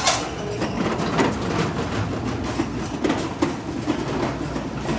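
Wooden cedar boards knocking and clacking against each other and the rack as they are picked up and handled, with a loud knock about the start, alongside the rattle of a cart rolling over a concrete floor and a steady low rumble.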